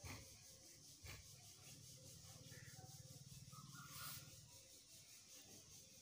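Near silence with faint handling noise: a couple of soft clicks near the start and a brief rustle about four seconds in.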